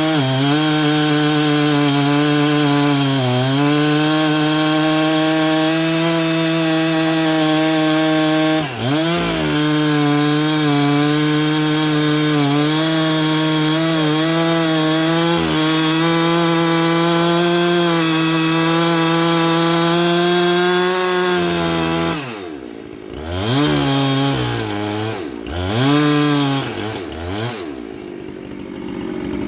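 Two-stroke chainsaw running at high revs while cutting wood, its pitch dipping briefly now and then as the chain loads in the cut. In the last several seconds the engine drops in pitch and revs back up three or four times, then settles lower.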